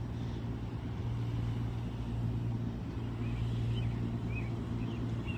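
Large outdoor fans running, a steady low hum. A few faint short high chirps come in about halfway through.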